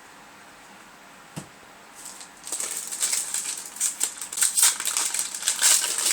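A foil Yu-Gi-Oh! booster pack wrapper crinkling as it is torn open and handled: a rapid, irregular run of crackles that starts about two and a half seconds in, after a single soft knock.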